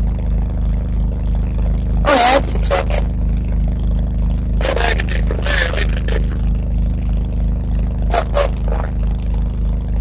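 1980 Case 480D backhoe's engine running steadily, heard from the operator's seat, with three brief scraping noises over it about 2, 5 and 8 seconds in.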